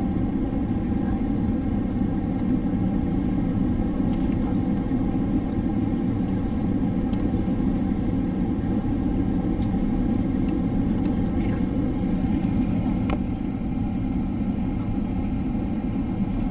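Steady cabin noise inside a Boeing 767 in flight on descent: an even, low rumble of the jet engines and rushing air, with a few faint ticks.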